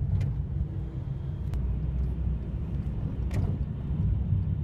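Steady low road and engine rumble heard from inside a moving van's cabin, with a few faint clicks.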